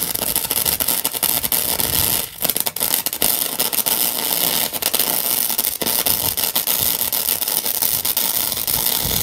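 Gasless flux-core MIG welding arc from a RILAND MIG 145E wire-feed welder, crackling steadily as it lays a bead on steel, briefly interrupted about two seconds in.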